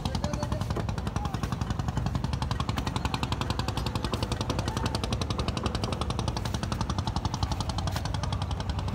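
Motor boat engine running steadily with a fast, even chugging beat over a low hum.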